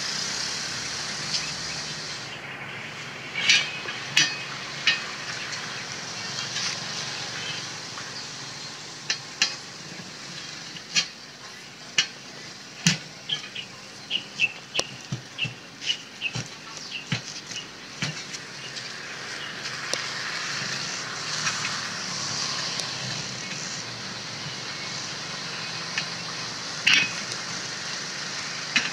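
A steel bar clinking and knocking against a steel wheel rim as it is levered between rim and tyre to pry the tyre bead off: a string of sharp metallic taps, some ringing briefly, bunched in the first two-thirds and once more near the end, over a steady hiss.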